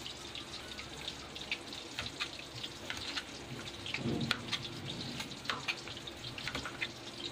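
Kitchen knife slicing a white radish into rounds over a plastic cutting board: irregular crisp cuts and taps of the blade. Underneath is a steady sizzle of fish frying in oil.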